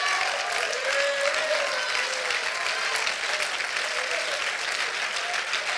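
Church congregation applauding, with voices calling out over the clapping.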